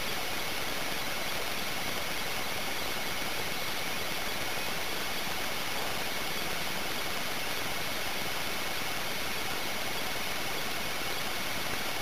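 Steady hiss from a tiny pocket video recorder's own microphone, with a faint steady high whine and no bird calls heard.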